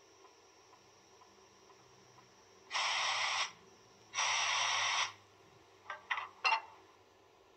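Sound function of a Roco H0 class 218 diesel locomotive model playing its coupling/uncoupling sound: two bursts of hiss, each under a second, about three and four seconds in, then a few short clicks about six seconds in.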